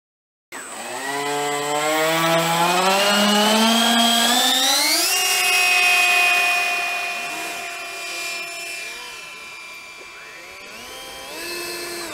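Twin 90 mm electric ducted fans of a radio-controlled MiG-29 model jet, cutting in about half a second in and spooling up with a whine that rises steadily in pitch for about four seconds. They then hold a steady high whine through the takeoff and fade as the jet climbs away, the pitch bending near the end as it passes.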